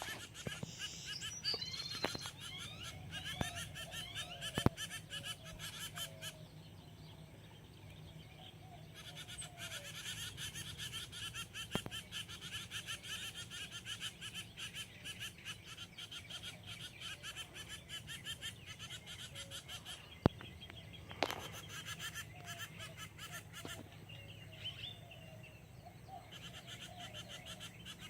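Animal calls: short gliding calls over a fast, even pulsing chorus, with a few sharp clicks.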